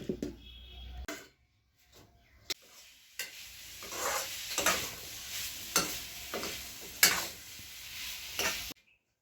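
Food being mixed and scooped on a plate while eating, a run of short scraping and squelching sounds that stops suddenly near the end.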